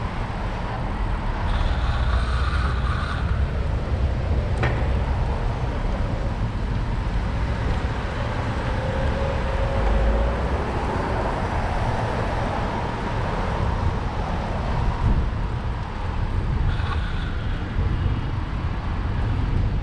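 Steady city street traffic noise, cars and other vehicles going by, heard from a moving bicycle, with a constant low rumble underneath.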